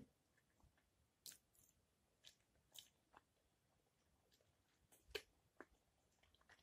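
Quiet eating sounds: faint chewing of fried potatoes, with about half a dozen short, soft clicks scattered through it, the loudest a little past the middle.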